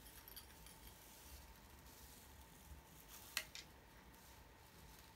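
Near silence: room tone, broken by two light clicks close together about three and a half seconds in.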